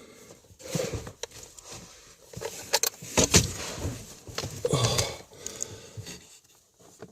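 Tools and small hard parts being handled, clinking and rattling irregularly, with a few sharp clicks about three seconds in and a louder cluster near five seconds.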